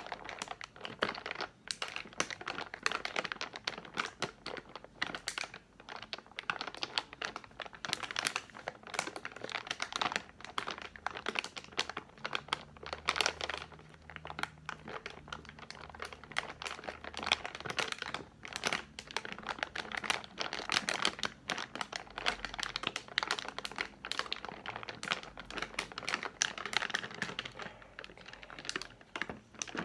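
Candy wrapper packaging crinkled by hand: a continuous, irregular crackle.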